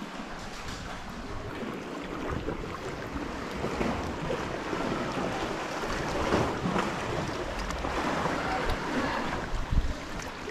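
Sea water lapping and sloshing around a kayak hull and against rock in calm sea, with paddle splashes and a single sharp knock near the end.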